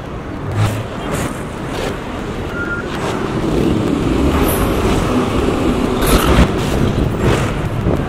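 Diesel engines of heavy road-construction trucks and machinery running, a low rumble that builds from about three seconds in, with a few short metallic clanks over it.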